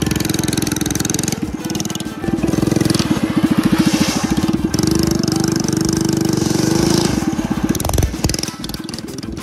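Go-kart's small petrol engine running under throttle, louder for several seconds in the middle, then easing off near the end.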